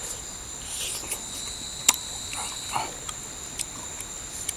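Steady high-pitched insect trilling, with a few sharp wet smacks and soft chewing of a person eating coconut worms (palm weevil larvae) mixed in.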